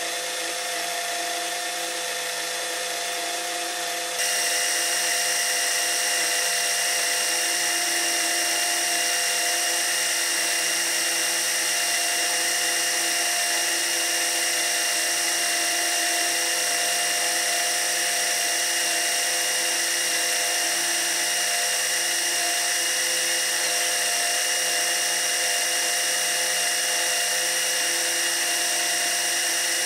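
12-volt electric oil extractor pump running steadily with a constant whining hum, primed and drawing motor oil through its hoses. It steps up in loudness about four seconds in and then holds even.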